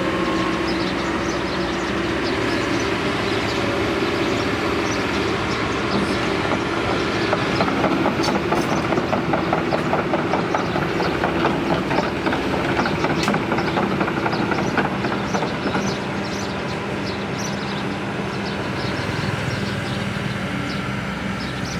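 Diesel excavator running steadily, with a fast metallic clatter in the middle from the machine working.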